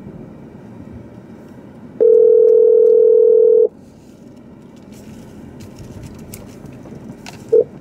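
Ringback tone of an outgoing phone call: one steady ring lasting under two seconds, starting about two seconds in, then a brief beep near the end as the call connects.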